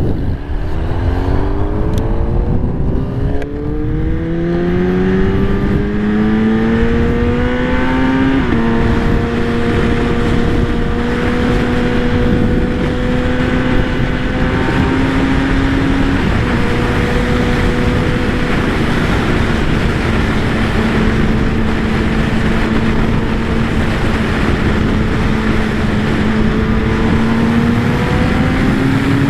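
Kawasaki ZX-10R inline-four sport bike engine rising in revs for about eight seconds, then holding a steady high note at cruise, with revs climbing again near the end. Wind rushes over the microphone throughout.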